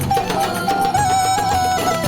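Background music: a folk-style, Middle Eastern-flavoured instrumental, with a wavering lead melody over a steady beat and bass.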